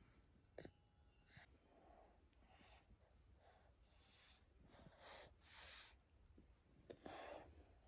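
Near silence, with a few faint, soft breaths and two small clicks in the first second and a half.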